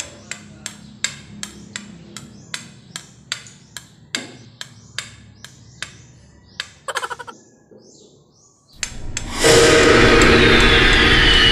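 Sharp, even taps, about three a second, for some seven seconds, ending in a quick cluster of taps. After a brief hush, a loud rushing horror sound effect with a steady drone sets in about nine seconds in.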